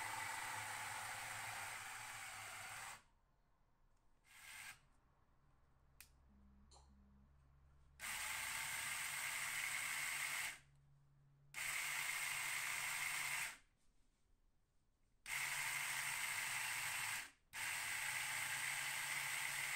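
The model two-post car lift's 12 V electric motors with 3D-printed nylon planetary gearboxes, driving the lift's threaded shafts with a hissing whir. They run for about three seconds, stop, and after a single click start and stop again in four runs of about two seconds each, from about eight seconds in.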